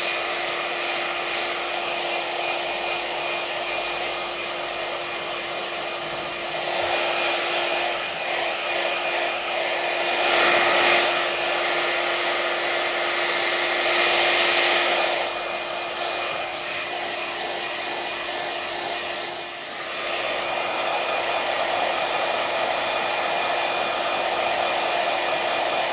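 Handheld iTeraCare terahertz wand running, its fan blowing steadily like a hair dryer with a steady hum. It swells louder and brighter between about 7 and 15 seconds in, dips briefly just before 20 seconds, then carries on evenly.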